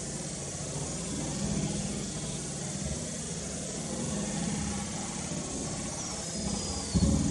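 Steady outdoor background hiss with a low drone under it, a thin falling whistle near the end, and a single low thump at the very end.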